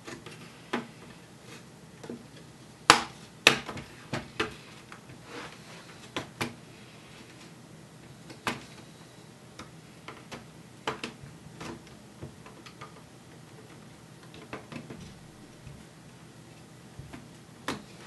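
Dell Latitude 3540 laptop's palm rest tabs clicking free from the chassis as a plastic pry tool is slid around its edge: irregular sharp clicks, the loudest a pair about three seconds in.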